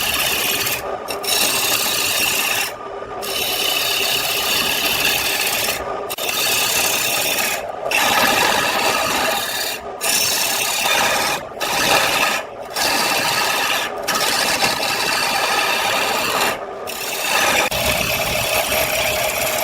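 Wood spinning on a lathe being cut with a turning tool: a continuous scraping hiss, broken by short pauses every one to three seconds as the tool comes off the wood.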